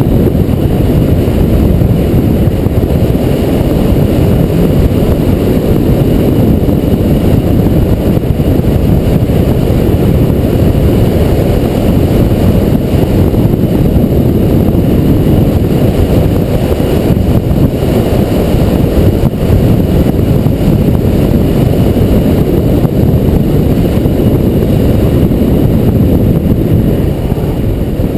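Wind noise buffeting the microphone of a bicycle descending at speed: a loud, steady, low rush with no breaks.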